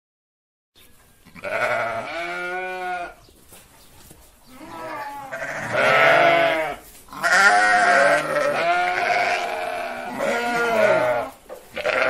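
Sheep bleating: a series of long, wavering bleats, one after another, starting about a second in.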